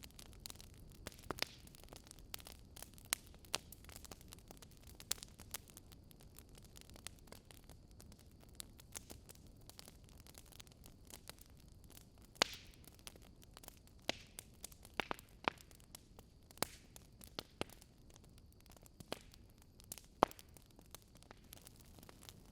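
Wood fire crackling: burning logs give off irregular sharp pops and snaps over a faint, steady low rumble.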